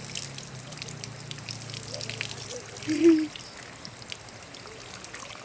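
Running water trickling and pouring steadily, with small splashy clicks. About three seconds in, a brief loud pitched sound stands out over the water.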